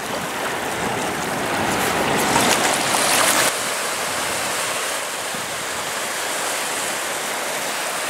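River Thames water washing steadily against the foreshore, with a louder surge that cuts off suddenly about three and a half seconds in.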